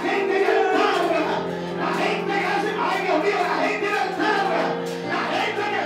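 A man singing a worship song into a handheld microphone, over steady held chords of backing music.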